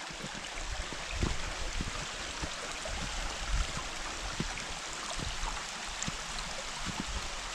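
Steady rushing of water from the stream at the Cascada Boiului, a small two-step waterfall, with a few scattered low thuds.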